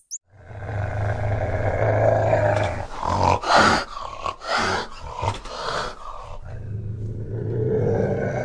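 An animal growling: a long, low, rough growl, then a run of short grunts, then another long growl near the end.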